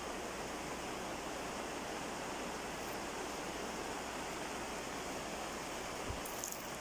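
Steady, even hiss of background noise, with a faint brief rustle about six seconds in.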